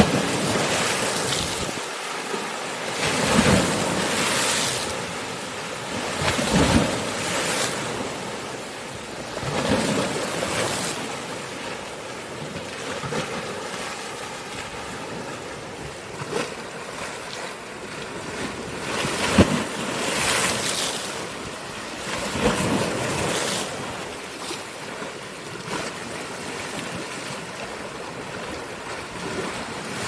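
Sea waves breaking and splashing against rocks, with irregular surges of surf every few seconds over a continuous wash of foaming water.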